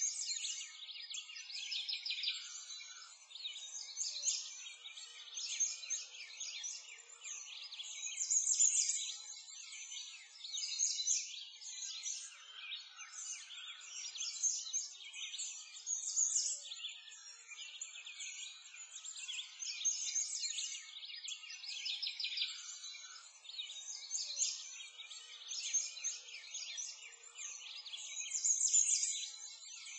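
Dense chorus of many birds chirping and singing at once, high-pitched and unbroken, with no low sounds beneath it.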